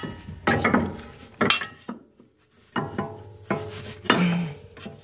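A series of metal clanks and clinks as a front suspension part is worked loose and maneuvered out by hand, some knocks ringing briefly.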